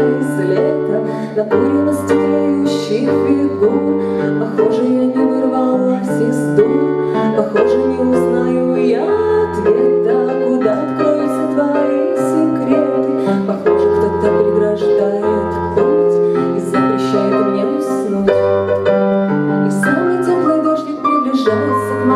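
Instrumental passage of a slow pop song: sustained keyboard chords over low bass notes that change about every second, without singing.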